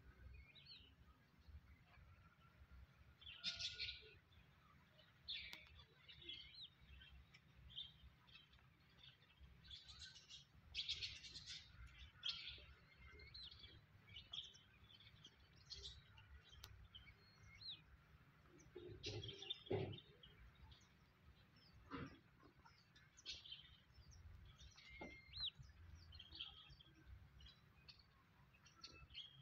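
Faint bird chirping: many short, scattered high calls with irregular gaps, and a few soft low thumps in the middle.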